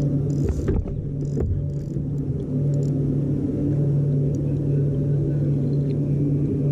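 A steady low hum at one fixed pitch, like a motor or engine running, with a few faint clicks about a second in.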